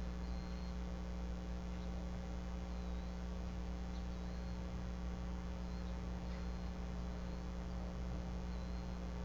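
Steady electrical hum and hiss from the nest cam's microphone feed, with faint short high chirps about six times.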